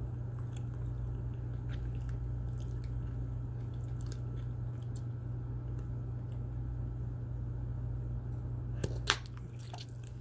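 Bubble gum chewed and blown with dentures: faint wet clicks of the gum, then a sharp pop about nine seconds in as a bubble bursts. A steady low hum runs underneath.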